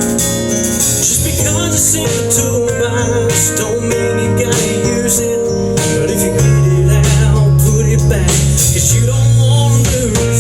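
A band playing an instrumental break between verses of a song: guitar over bass and drums with cymbal strikes. The bass comes in fuller about six seconds in.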